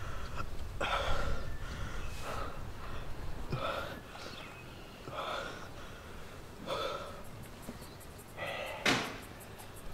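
A teenage boy's ragged, gasping breaths, a short burst about once a second: he is out of breath and shaken after being beaten up. A louder, sharp sound comes near the end.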